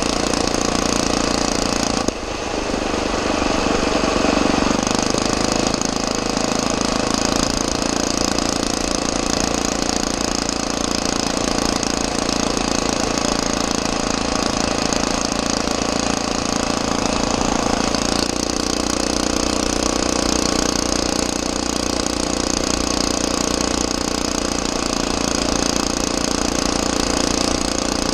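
Predator 6.5 hp 212cc single-cylinder four-stroke engine on a motorized bicycle, running steadily under load while the bike is ridden, with a brief dip in level about two seconds in.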